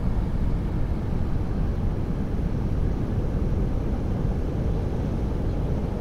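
Heavy ocean surf breaking on a reef, a steady low roar that does not let up.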